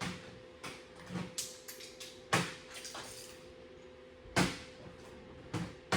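A handful of separate knocks and clatters, tools being handled while a 10 mm socket or wrench is fetched, over a faint steady hum.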